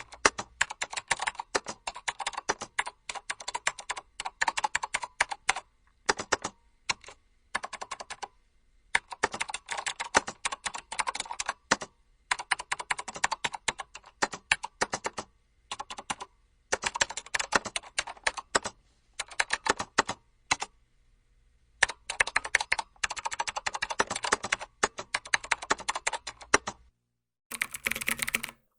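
Fast typing on a computer keyboard: runs of rapid key clicks broken by short pauses. Near the end a different, brighter typing recording begins after a brief silence.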